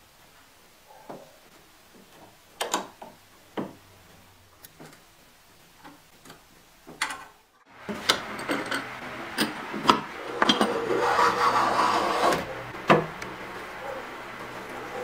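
Hand work on wooden parts: scattered light taps and clicks as pieces are handled and fitted. From about halfway, denser rubbing and scraping of wood with a few sharp knocks comes over a steady low hum.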